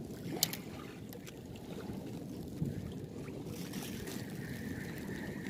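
Steady low rumble of a small fishing boat on the water, with a single short click about half a second in and a faint steady whine that sets in about three and a half seconds in.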